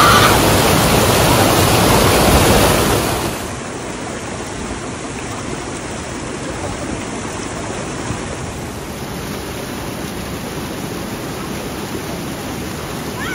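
Water rushing over a waterfall, a steady noise that drops to a lower level about three seconds in.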